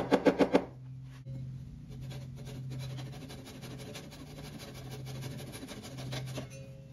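A claw hammer tapping a wooden dowel pin into a chair's mortise-and-tenon joint in a quick run of light blows, about seven a second, stopping about half a second in. Then a fine-toothed hand saw cutting back and forth, trimming the pin flush.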